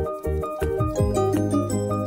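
Background music with a steady beat: a melody of short notes over a bass line.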